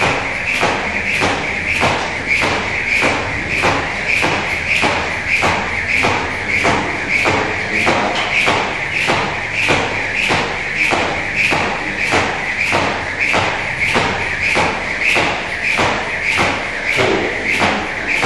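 Jump rope doing double-unders, the rope ticking on the concrete floor in an even rhythm of about two strikes a second, without a break.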